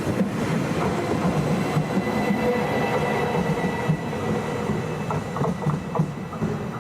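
Train rolling slowly on the station tracks: steady wheel-on-rail rumble with knocks over the rail joints, and a faint high wheel squeal in the middle.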